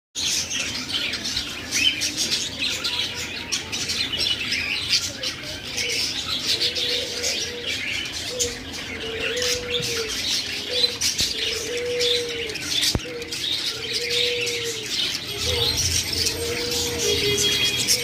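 A cage of budgerigars chattering and chirping busily. From about five seconds in, a low, dove-like coo repeats every second or so underneath.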